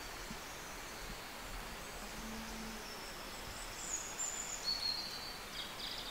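Great tit nestlings begging, a few short, thin, high calls in the second half, over a steady hiss.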